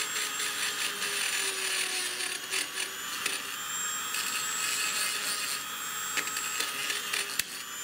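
High-speed hand-held rotary tool running with a steady high whine while a small abrasive bit grinds the edge of a hole in a metal block, with a scratchy rasp over it. A sharp click comes near the end.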